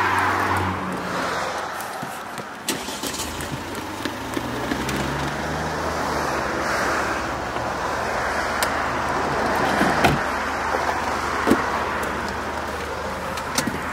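Road traffic: cars passing one after another, their tyre and engine noise swelling and fading, over a low steady hum, with a few light clicks.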